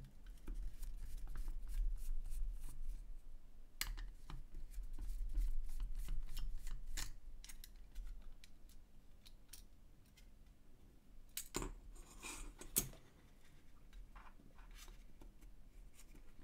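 Scattered small clicks and scrapes of hand tools and loose plastic parts as a Voopoo Drag vape mod is taken apart, with a few sharper clicks about four seconds in and around twelve seconds.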